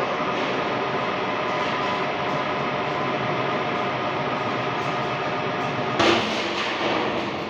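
Machine-shop machinery running with a steady hum and several whining tones, broken by a sudden loud knock about six seconds in.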